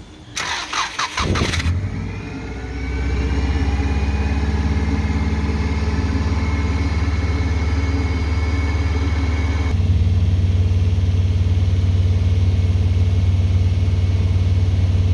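Subaru Impreza GC8's flat-four boxer engine, under a Haltech ECU, cranking on the starter for about a second, catching and then running at a steady fast idle of about 2,200 rpm. The revs rise just after it fires, and the sound changes abruptly to a heavier, lower hum about ten seconds in.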